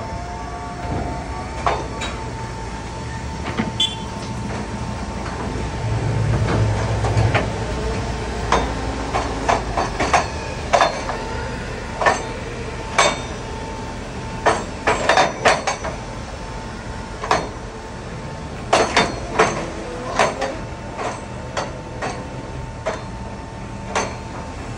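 Hydraulic tire baler running through a compression cycle as its ram crushes a load of tires: a steady machine whine with frequent irregular sharp clanks and knocks, and a heavier low rumble about six seconds in.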